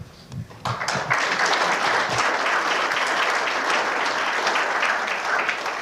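A room full of people applauding, the clapping starting suddenly about a second in and keeping up steadily.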